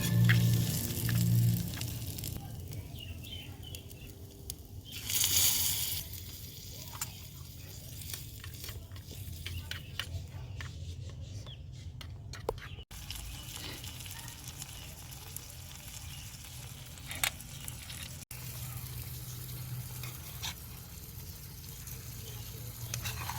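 Food frying in a pan: a steady low sizzle with scattered light clicks, and a louder rush of hiss about five seconds in.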